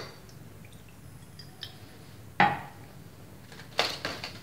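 Ceramic saucer and dishes knocking and clinking against a granite countertop: a sharp click at the start, a louder knock with a short ring about two and a half seconds in, and a few quick clinks near the end.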